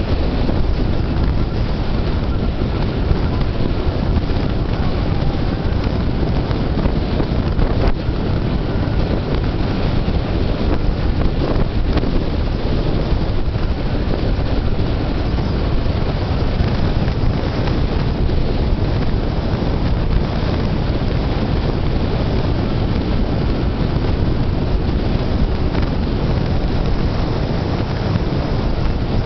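Steady rush of wind buffeting the microphone at an open window of a car driving at about 45 mph, with tyre and road noise under it.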